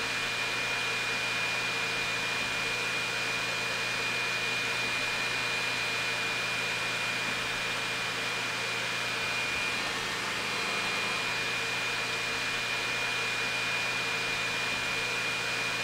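Elegoo Neptune 4 Max 3D printer running a print, its fans giving a steady whir with a constant high whine that breaks off briefly about ten seconds in.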